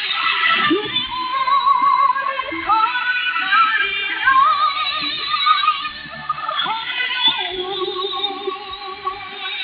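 Female chorus singing with musical accompaniment, the voices wavering with vibrato. It sounds thin, as heard through a shortwave radio receiver.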